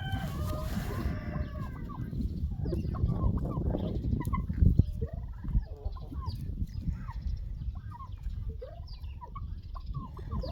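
Domestic chickens clucking and calling, with many short calls one after another and a longer call right at the start, over a steady low rumble.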